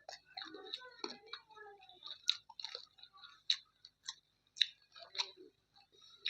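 Close-up chewing and wet mouth smacks of someone eating chicken curry with rice, with sharp clicks coming about once a second.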